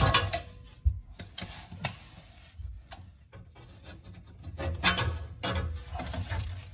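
Hand tools and parts being worked under a car while its fuel tank is lowered: irregular clicks, scrapes and knocks, thickening into a denser run of rasping clicks about five seconds in.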